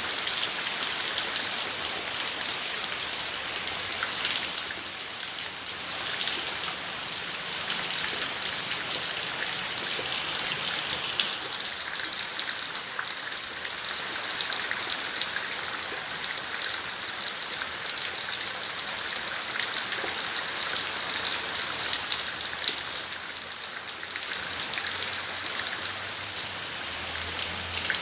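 Steady rain falling in a garden, a dense even hiss with many drops pattering on surfaces.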